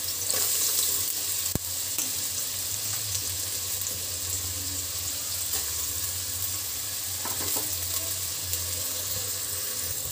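Finely chopped onion sizzling steadily in hot oil in a stainless steel pot.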